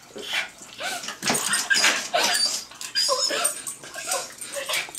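A small dog whining and giving short yips, in many brief calls that rise and fall in pitch.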